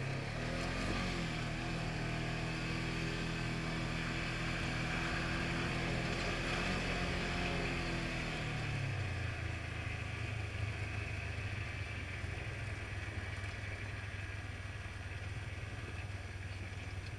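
Polaris RZR 900 side-by-side's twin-cylinder engine pulling under throttle: its pitch rises in the first second and holds steady, then falls away about eight and a half seconds in as the throttle eases, settling to a lower steady speed.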